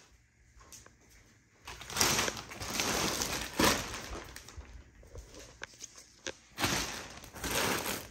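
Plastic wrapping rustling, crinkling and tearing as a compressed mattress is unwrapped, in two spells after a quiet first second or so.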